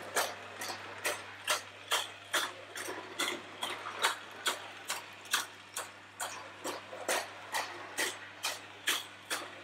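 Mamod SL1 live-steam tank locomotive running round a circle of track, with a sharp, regular click about two and a half times a second.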